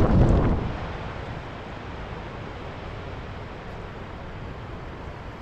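Steady wind noise on the microphone, with a louder gust buffeting the mic in the first moment before it settles to an even rush.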